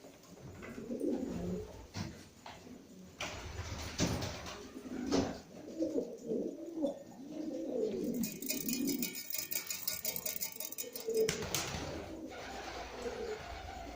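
Domestic pigeons cooing over and over in a small loft, in low rolling calls. A few sharp clicks are heard, and a rustling noise runs for about three seconds in the middle.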